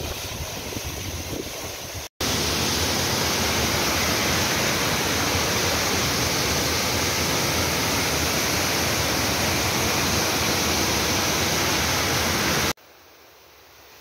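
Waterfall water falling and splashing: a steady rushing roar. It breaks off briefly about two seconds in, comes back louder and very even, and drops suddenly to a faint hiss near the end.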